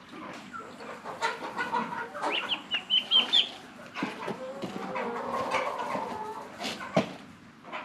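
Chickens clucking, with a quick run of short, high calls about two to three seconds in and a sharp knock near the end.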